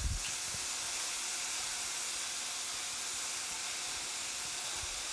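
Chopped onion and bay leaves sizzling in olive oil in a stainless steel sauté pan: a steady, even hiss.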